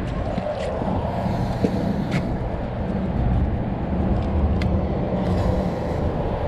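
Boat motor running steadily with a low rumble, with a few sharp clicks over it.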